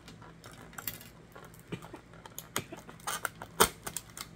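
Clear plastic food packaging being handled and opened: scattered crinkles and clicks, with the sharpest click about three and a half seconds in.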